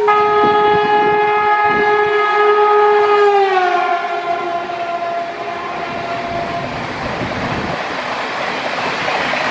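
Electric locomotive's air horn sounding one long blast as the train passes at speed. Its pitch drops about three and a half seconds in as the locomotive goes by, and the horn stops a little past the middle. The rushing noise of the coaches passing carries on to the end.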